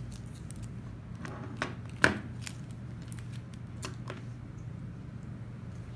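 A few sharp plastic clicks and taps from handling a handheld RFID card copier, the loudest about two seconds in, over a steady low hum.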